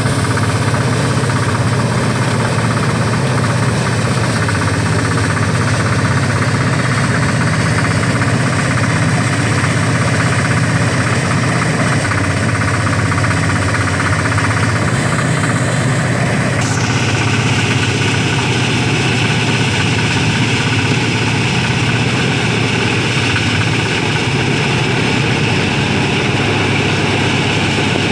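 Engine-driven rice threshing machine running steadily while rice stalks are fed into its spinning drum. The upper part of its sound changes abruptly about 17 seconds in.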